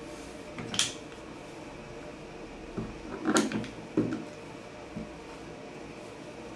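Wooden clamps being handled and tightened onto a stack of glued plywood discs: several short knocks and clatters of wood and metal, the loudest a short clatter about three and a half seconds in, over a steady low hum.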